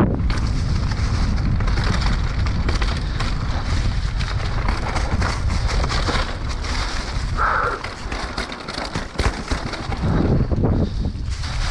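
Mountain bike rattling and clattering over a rough trail descent: a dense run of loose knocks. Wind buffets the microphone throughout.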